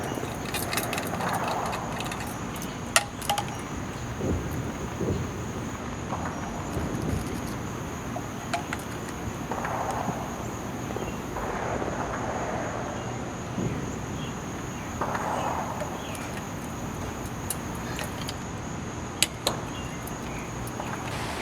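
Steady high-pitched drone of insects, with a few sharp light clinks and soft rustling.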